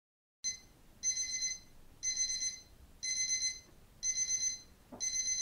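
Digital alarm clock beeping: groups of rapid high-pitched beeps, repeating about once a second.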